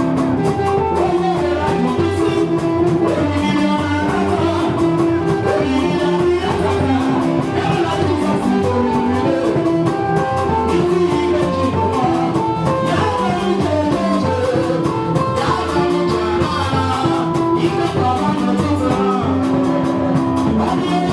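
Live church praise and worship music: a woman sings lead into a handheld microphone over a band playing a steady beat.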